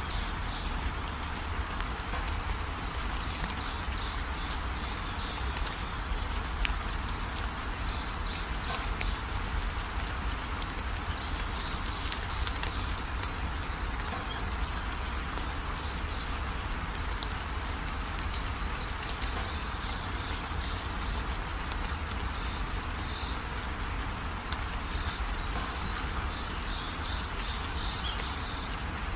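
Steady background hiss with clusters of short, high chirps at intervals, typical of small birds.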